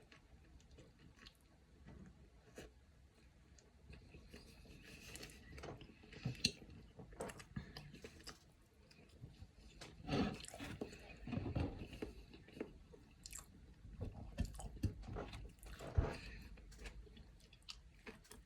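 A person chewing and biting food close to the microphone, with irregular crunches.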